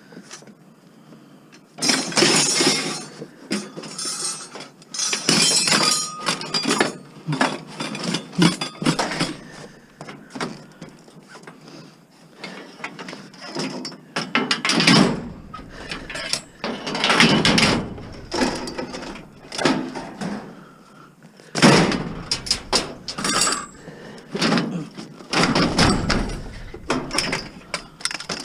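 Scrap metal and junk being shifted and packed into a loaded truck: repeated knocks and clatter in bursts, with heavier thuds in the second half.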